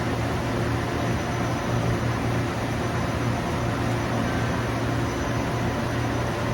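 Precision grinding machine running steadily: an even hiss over a constant low hum, with no change in pitch or level.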